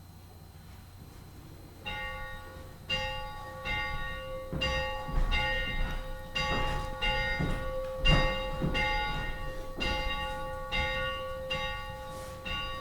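A church bell rung repeatedly, about one stroke every two-thirds of a second. It starts about two seconds in and the ringing carries on between strokes, fading after the last stroke near the end.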